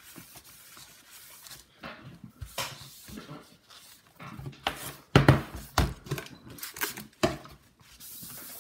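A cloth wiping a MacBook Air's aluminium case while the laptop is handled: irregular rubbing and small knocks, the loudest thumps about five seconds in. A faint steady hiss starts near the end.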